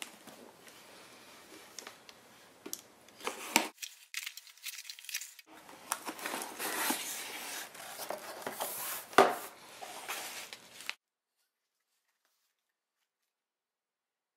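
Mailed packaging being torn open and crinkled by hand: rustling and sharp rips with a few clicks, loudest in a stretch of ripping in the middle. The sound cuts off suddenly to dead silence about eleven seconds in.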